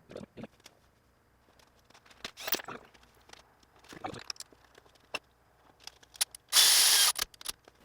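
Hand tools and metal engine parts clicking and knocking in short, scattered taps while cam gear bolts are worked on. One loud, harsh rasp lasts under a second near the end.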